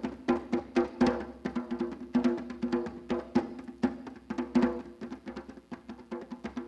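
Hand drumming on a djembe: a fast, steady run of bare-hand strikes with a clear ringing drum tone, softening about five seconds in.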